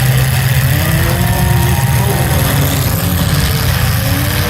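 Engines of several full-size demolition derby cars running together under a steady low drone, their revs rising and falling.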